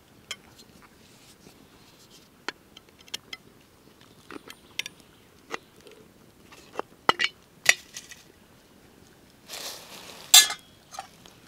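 Small hard objects being handled: scattered sharp clicks and clinks. Near the end comes a short rustle with one loud click.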